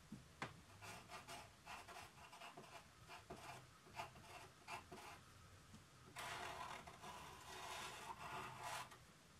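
Pencil scratching on drawing paper: short separate strokes at first, then about six seconds in a faster, louder run of continuous scribbling that lasts nearly three seconds.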